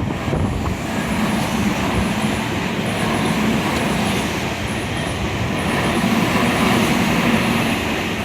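Tokyu Toyoko Line train running past at a level crossing: a steady, loud rumble and rush of wheels on rail. It is loudest about seven seconds in and begins to ease near the end.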